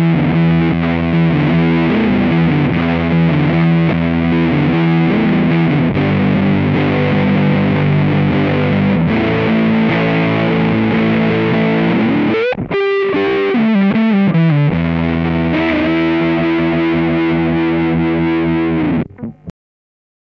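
Electric guitar played through an Electro-Harmonix Big Muff Pi fuzz pedal, sustain fully up and tone at noon: thick, sustaining fuzz chords and riffs. About twelve seconds in there is a brief gap and some sliding notes, and the playing stops about a second before the end.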